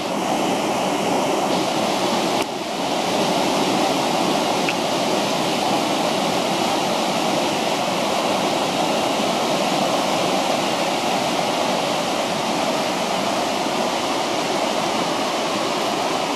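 Rain-swollen mountain river rushing loudly and steadily over rapids and around boulders, a strong current of high water after rain.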